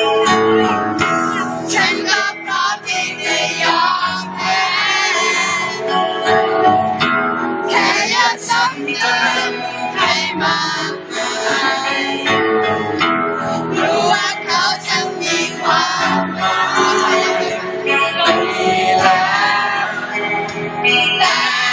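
Amplified live pop music with a sung vocal line over full instrumental backing, loud and continuous.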